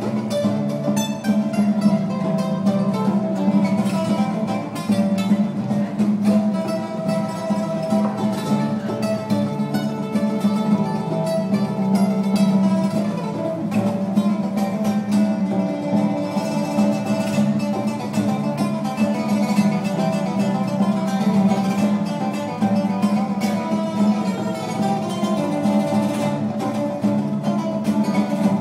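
Acoustic guitar played fingerstyle: a continuous stream of quickly plucked notes over a steady bass.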